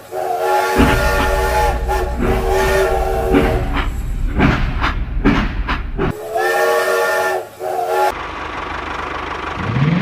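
Steam-train sound of a toy steam locomotive: a chord-like steam whistle sounding for the first few seconds and again briefly past the middle, with steam hissing and a low rumble in between and a steady hiss near the end.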